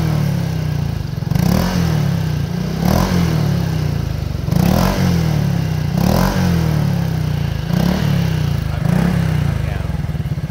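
Honda SH 2020 scooter's single-cylinder engine breathing through an aftermarket 4Road exhaust, revved in short throttle blips about every one and a half seconds and falling back to idle between them. The note is not very noisy even at full throttle.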